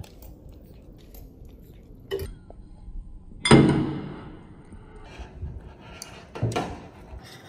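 Dishes and utensils knocking and clinking, with one loud clatter that rings on briefly about halfway through.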